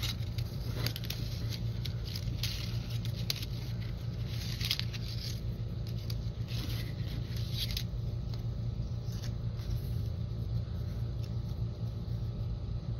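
Die-cut paper and cardstock pieces rustling, sliding and scraping in irregular spurts as they are picked through and shuffled, over a steady low background hum.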